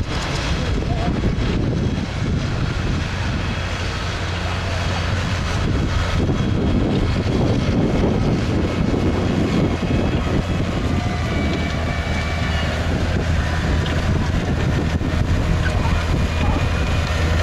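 Tractor engine running steadily with a constant low hum, with wind buffeting the microphone.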